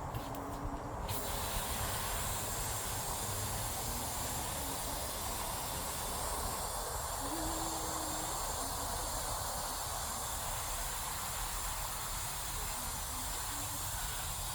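Steady hissing noise that fills out about a second in and holds evenly, with a few faint short low tones in the background.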